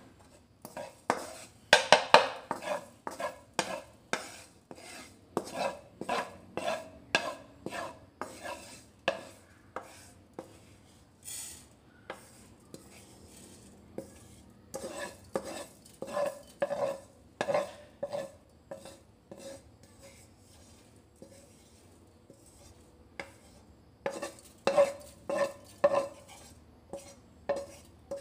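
Wooden spoon scraping and knocking against a non-stick wok as toasted sesame seeds are pushed out into a small steel bowl: runs of quick strokes about one or two a second, stopping twice for a few seconds.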